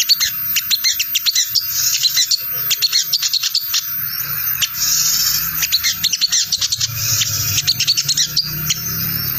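Olive-backed sunbird (sogon) giving its fast chattering 'ngriwik' call: runs of quick, high chirps, one after another without pause. It is a lure call meant to make other sunbirds answer, over a faint low hum.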